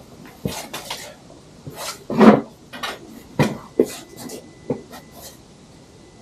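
Irregular clicks, taps and knocks of things being handled, the loudest a dull thump about two seconds in, then sharper knocks a second or two later.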